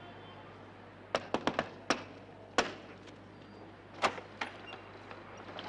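Knocking on a door: five sharp knocks in a quick, uneven rhythm, then one louder knock, and two more sharp clicks about a second and a half later. A low steady hum sits underneath.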